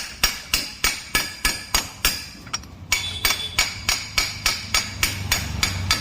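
Steady hammer blows on metal, about three a second, each leaving a short metallic ring, as the damaged clutch coil is driven off a Maruti 800's AC compressor. The blows are light so as not to crack the compressor body. The ringing note changes to a higher one about halfway through.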